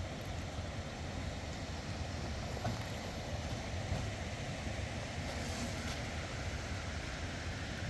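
Steady rushing noise at an even level, heaviest in a low rumble, with no distinct sounds standing out.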